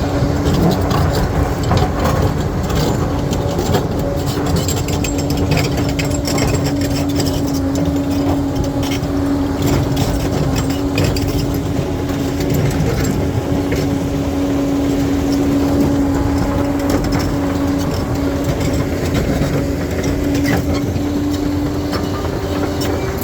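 Crawler bulldozer's diesel engine running steadily under load, with a constant hum and frequent clanks and knocks from the steel tracks and rock.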